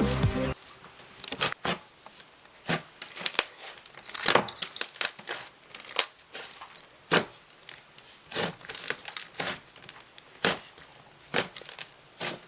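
Butter slime being squished and pressed by hand, giving irregular sizzling crackles and small bubble pops, a few to the second.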